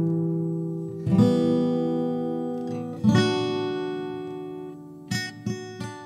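Background music: strummed guitar chords, each left to ring and fade, a new chord about every two seconds, with a few quicker strums near the end.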